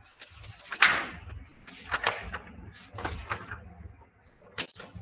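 Rustling and handling noises close to the microphone, brushing several times, with a sharp click about four and a half seconds in.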